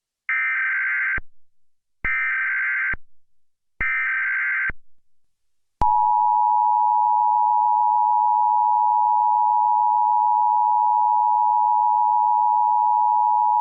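Emergency Alert System alert opening: three short bursts of SAME header data tones, each about a second long with a second's gap between them. These are followed, about six seconds in, by the steady two-tone EAS attention signal, which holds without change.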